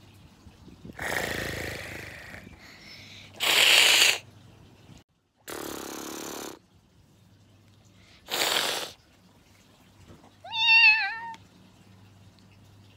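A cat meowing once near the end, after four short hissing bursts.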